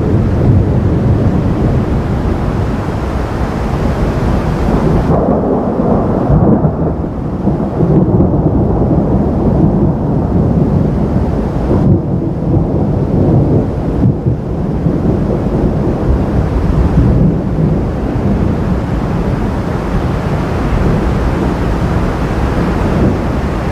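Thunder rumbling on and on through a thunderstorm, a long heavy low roll. A hiss of rain sits over it; the hiss thins out about five seconds in and comes back in the last few seconds.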